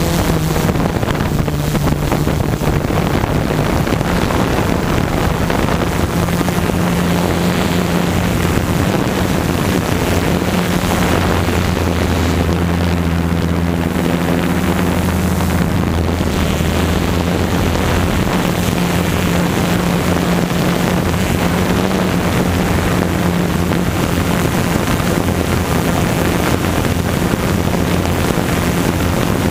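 Tarot multirotor drone's electric motors and propellers buzzing steadily, heard from the camera on board, the hum's pitch wavering slightly. Wind noise on the microphone.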